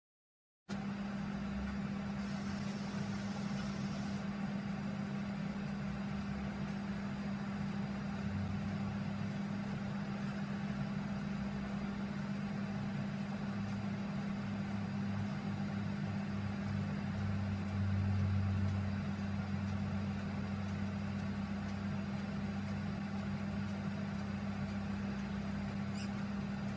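Steady low mechanical hum with no distinct impacts, rising slightly in level about two-thirds of the way through.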